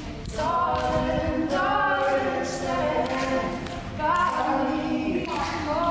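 A group of voices singing unaccompanied in harmony, holding notes for about a second at a time before moving together to new pitches.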